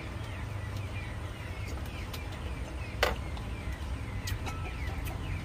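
Outdoor ambience of small birds chirping repeatedly over a low steady rumble, with a few clicks of tableware and oyster shells on plates, the sharpest about three seconds in.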